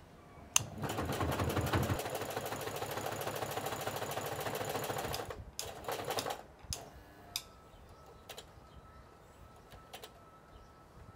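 Singer Heavy Duty sewing machine running fast, stitching leather for about four and a half seconds after a sharp click at the start, then stopping. It gives two short bursts a second later, and a few light single clicks follow.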